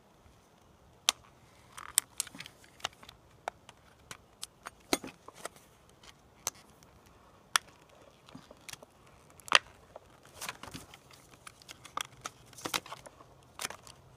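Retail blister-card packaging of credit-card-size sharpening plates being handled and pried open by hand: irregular sharp clicks and short crackles.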